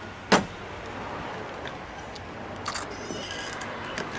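One sharp snap about a third of a second in, then a few lighter clicks and taps over a steady low hum.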